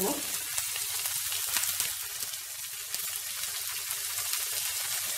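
Sliced red onions sizzling in oil and butter in a frying pan, a steady hiss with fine crackling as they fry lightly to soften.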